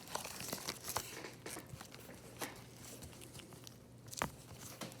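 Small hand file rasping in short, irregular strokes against the dented corner of an iPad mini 5's aluminium housing, bringing a raised edge down and taking off burrs.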